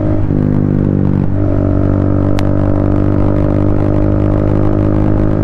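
Triumph Speed 400's single-cylinder engine running steadily while riding at road speed, with a brief change in engine note about a second in.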